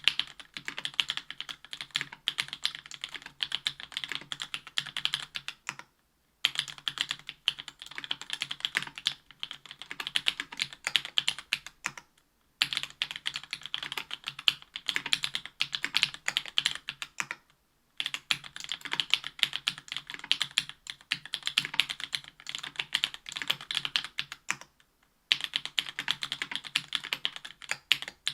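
Continuous fast typing on a Special Whale LinWorks keyboard with stock JWK Black 62g linear switches, an aluminium plate and GMK keycaps, in runs of several seconds broken by four brief pauses.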